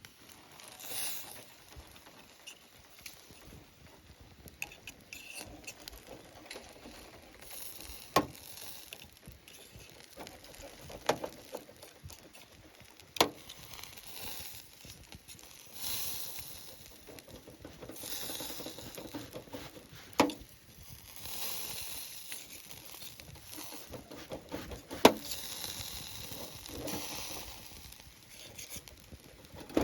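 Wood campfire crackling, with about five sharp pops spread through and softer irregular crackle between them.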